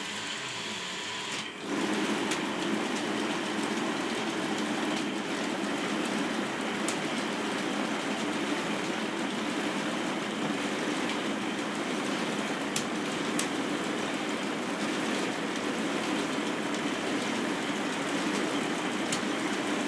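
K'nex robot arm's plastic gear transmissions running, a steady mechanical whir and rattle that gets louder about a second and a half in. A few sharp clicks stand out over it.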